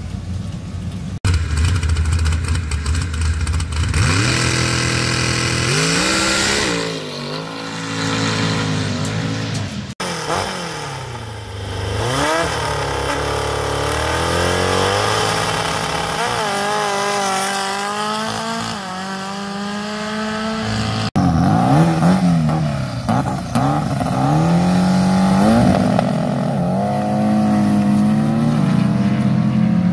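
Drag race cars' engines revving and accelerating hard, the pitch climbing and then dropping back again and again as the gears change. Three separate clips are cut together, about 1, 10 and 21 seconds in.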